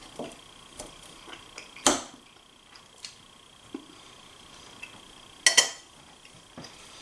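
A metal fork clinking against a ceramic dinner plate while eating, in a handful of separate sharp clinks. The loudest come about two seconds in and as a quick double clink about five and a half seconds in.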